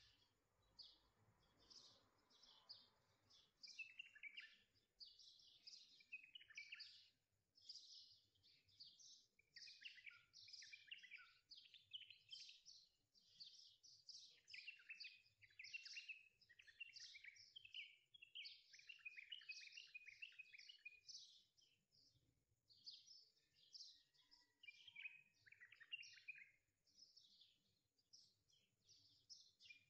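Faint chirping of many small birds, a dense run of short calls with brief pauses between them.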